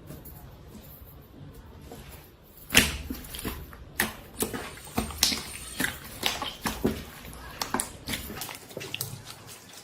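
Slime being handled, making a run of sharp, irregular pops and clicks, several a second, that start about three seconds in.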